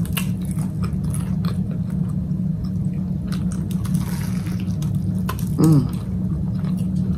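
Wet chewing and mouth sounds of someone eating a bacon and egg toast sandwich, with scattered small clicks and a bite taken about four seconds in. A brief voiced hum comes just after the bite, over a steady low hum in the room.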